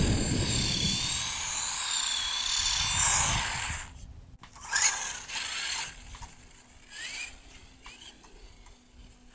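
Haiboxing Ratchet 1/18 electric RC buggy running: a high motor and gear whine whose pitch wavers with the throttle, dropping away about four seconds in, then a few short rising blips.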